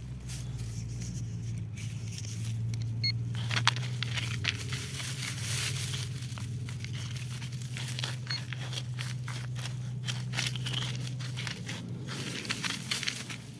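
Continuous irregular crunching, crackling and scraping in dry dirt and debris, over a steady low hum.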